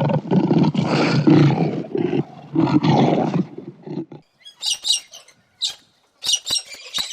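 A big cat's low, rough roaring growl, in uneven pulses for about four seconds. After it stops, short high chirps and squawks of a bird begin, repeated several times.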